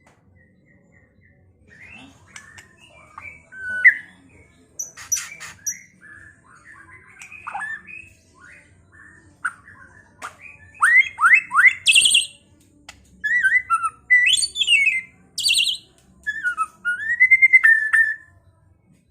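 White-rumped shama (murai batu) singing a varied song of loud whistles, quick sweeping notes and high trills, in phrases broken by short pauses.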